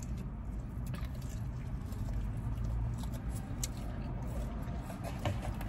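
Quiet eating sounds: chewing and handling of fried chicken strips, with a few faint clicks, over a steady low hum.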